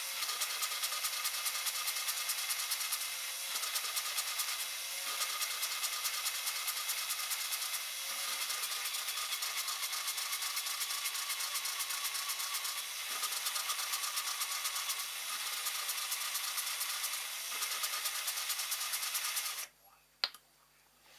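A small power tool running steadily with a fast, fine buzz, cutting off suddenly near the end.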